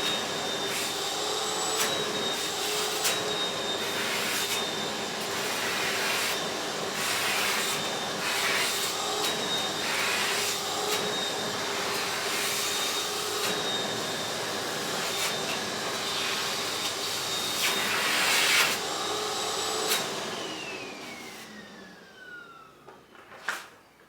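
Vacuum cleaner running steadily with a high motor whine and scattered clicks, then switched off about twenty seconds in, its motor whine falling as it spins down. A sharp click comes near the end.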